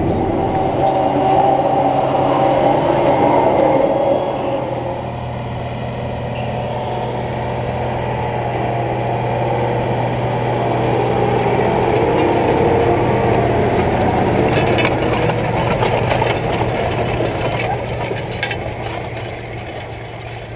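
Case IH Quadtrac 620's six-cylinder diesel engine running steadily under load as it pulls an 8 m Horsch Tiger cultivator. Partway through, the rattle and crackle of the cultivator's discs and tines working through stubble grows louder as the rig passes close, then the sound fades near the end.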